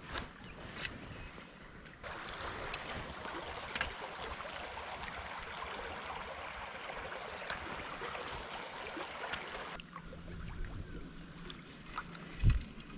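Creek water running, a steady hiss that starts abruptly about two seconds in and cuts off near ten seconds, with one dull thump near the end.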